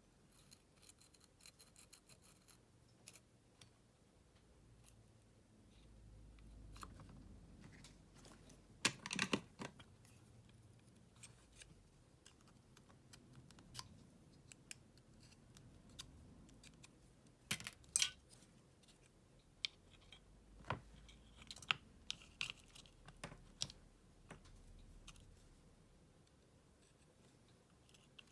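Scattered small clicks, taps and scrapes of hand work on a cordless screwdriver's battery pack, with a few sharper knocks about nine and eighteen seconds in.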